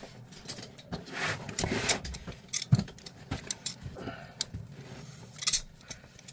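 Metal tool handling at a toilet's angle stop valve: tongue-and-groove pliers being set and worked on the brass compression nut, giving scattered sharp clicks and clinks with a brief rustle about a second in.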